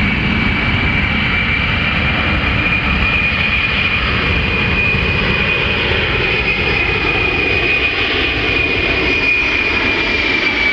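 C-17 Globemaster III's four turbofan jet engines running loud and steady as the aircraft flies its display: a high whine over a deep rumble. The whine rises slightly in pitch, then falls back near the end.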